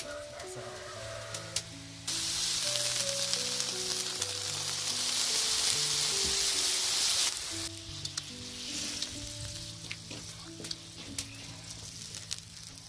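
Water poured onto steaming rice in a large hot metal pot hisses and sizzles loudly, starting about two seconds in and stopping suddenly about five seconds later. A background music melody plays throughout.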